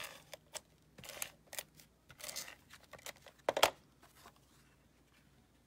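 Cardstock pieces being handled and slid into place on a craft mat: a run of short paper rustles and light taps, the loudest about three and a half seconds in.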